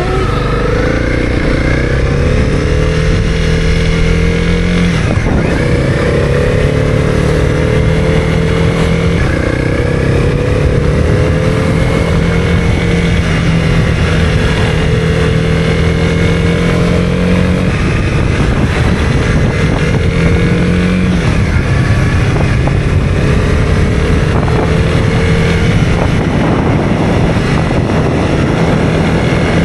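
Honda CB250R single-cylinder engine under way, accelerating through the gears: its pitch climbs, then drops sharply at each of several upshifts.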